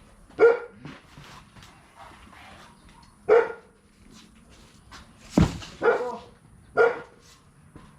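A dog barking in single sharp barks, four in all, spaced a few seconds apart. A heavy thump sounds just before the third bark and is the loudest event.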